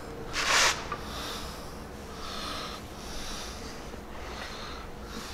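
A person breathing close to the microphone, with one louder, sharp breath about half a second in and then softer breaths about once a second.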